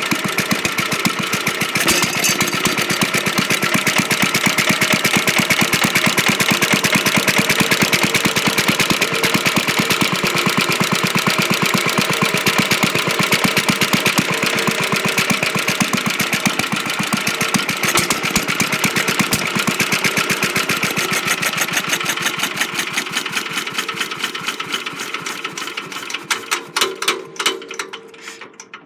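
1935 McCormick-Deering LA single-cylinder stationary engine running at a steady speed with a quick, even beat, then slowing to separate strokes and coming to a stop near the end.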